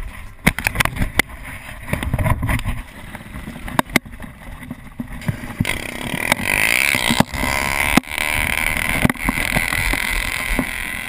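Wheels rolling over pavement during a ride, with a low rumble broken by frequent sharp clacks and knocks, then a steadier rushing noise from about halfway through.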